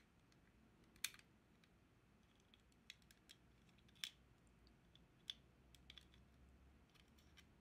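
Faint, scattered small clicks and taps of a metal pin poking against the plastic of a Logitech Pebble M350 mouse's battery compartment while pushing out a screw. The sharpest clicks come about a second in, at about four seconds and just after five seconds, with lighter ticks between.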